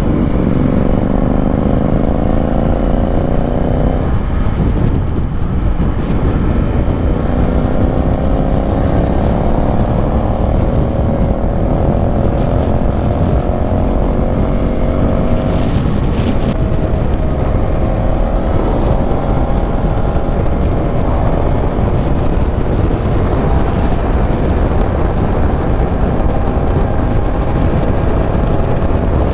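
KTM Duke 390's single-cylinder engine pulling hard under acceleration at highway speed, its note climbing steadily and dropping at two upshifts, about four seconds in and again about sixteen seconds in, over a steady rush of wind noise.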